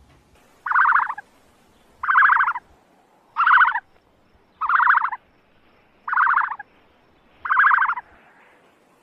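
An animal call repeated six times at an even pace, about every second and a half, each a short, buzzy, rattling croak.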